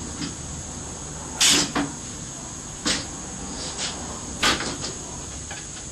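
Three sharp knocks about a second and a half apart, the first the loudest, with a few lighter clicks between: hard parts being handled and set down while hinges are fitted to a plastic container.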